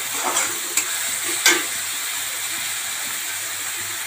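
Chopped onions sizzling steadily in hot oil in a metal kadhai while they fry toward golden brown. A metal spatula scrapes and stirs them a few times in the first second and a half.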